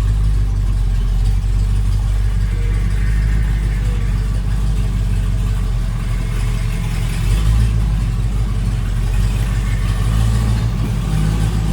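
1978 Ford F-350's 460 V8 running steadily at low revs as the truck creeps forward in first gear, with a slight swell in engine note about seven and a half seconds in.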